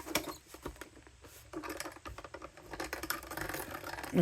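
Quick irregular clicks, taps and rustles of hands handling paper, a metal die and cutting plates at a die-cutting machine.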